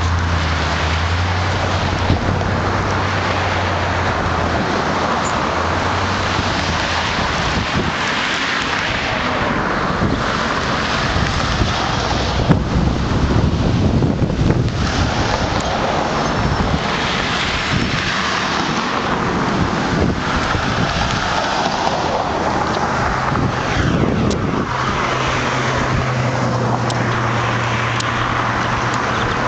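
Steady outdoor rumble of wind on the microphone mixed with passing traffic. A low engine hum sits under it for the first several seconds and again in the last few seconds.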